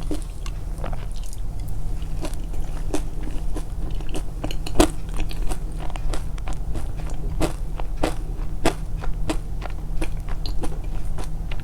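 Close-miked chewing and biting, with many irregular sharp crunching clicks over a steady low hum.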